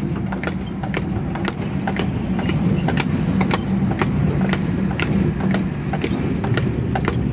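A horse's shod hooves clip-clopping in a steady walking rhythm, a few clops a second, over the steady rumble and rattle of a horse-drawn tramcar running on its rails.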